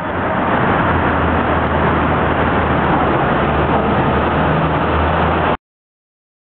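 Steady rumble of a moving vehicle with a low hum underneath, cutting off abruptly near the end.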